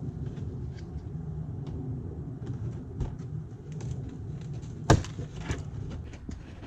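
Plastic retaining clips and the turn-signal lamp housing being worked loose by hand: scattered small clicks and scrapes, with one sharp snap about five seconds in as a clip lets go. A low steady rumble sits underneath.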